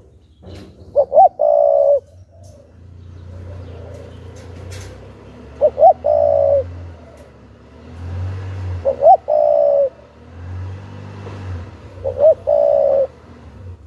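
Spotted dove cooing: four phrases about three and a half seconds apart, each two short rising notes followed by a longer held note.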